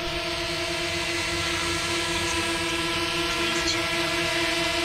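DJI Mavic Mini quadcopter hovering, its four motors and low-noise replacement propellers giving a steady whine at one pitch.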